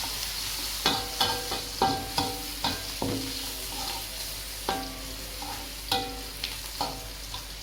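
Shallots, garlic and bay leaves sizzling in hot oil in a wok while being stir-fried, with a spatula knocking against the wok about a dozen times, each knock ringing briefly.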